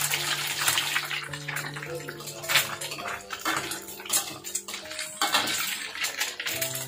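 An egg frying in hot oil in a wok, sizzling and crackling steadily, with a few clicks and scrapes of a metal spatula against the wok as the egg is turned. Soft background music with held notes plays underneath.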